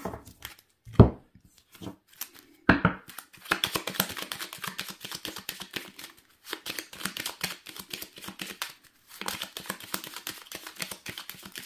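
A deck of oracle cards being shuffled by hand: a long run of fast, dense card clicks with two short pauses, after two sharp knocks near the start.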